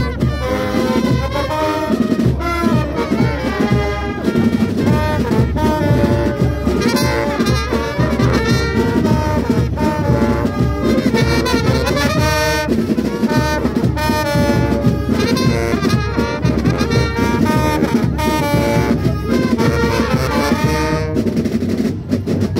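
Street brass band playing a lively tune, with trombones, trumpets and a sousaphone over drums. The horns stop near the end, leaving the drums.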